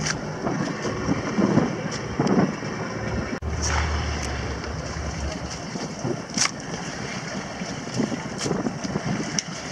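Wind rushing over the microphone on a fishing boat with sea water around it, a steady noisy haze broken by a few short sharp sounds. A low hum comes in briefly about halfway through.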